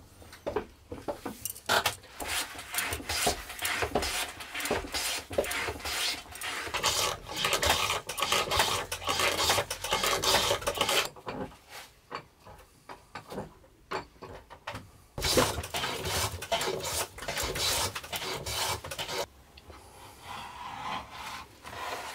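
Metal bench plane taking repeated shaving strokes along a wooden board, a rasping, scraping sound. There is a lull in the middle and a fainter scraping stretch near the end.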